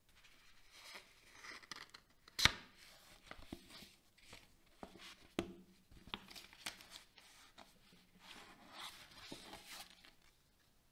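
Paper and plastic packaging being handled, rustling and crinkling, with several sharp taps and clicks; the loudest click comes about two and a half seconds in.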